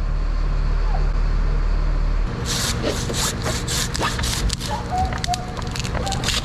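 Bucket truck engine running with a steady low hum whose note changes about two seconds in, followed by a run of irregular crackling snaps and rustles.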